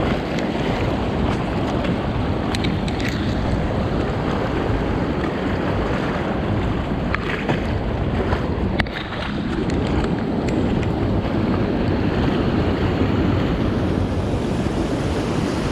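Steady, loud rush of a small mountain stream's running water.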